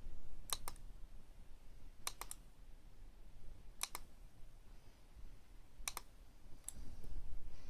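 Sharp clicks in groups of two or three, one group about every two seconds, over a faint low background hum.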